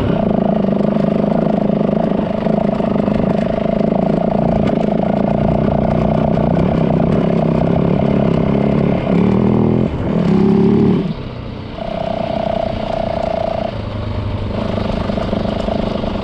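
Yamaha WR450 dirt bike's single-cylinder four-stroke engine running steadily under way. About nine seconds in the note breaks and briefly rises, then it settles at a quieter, steady pitch.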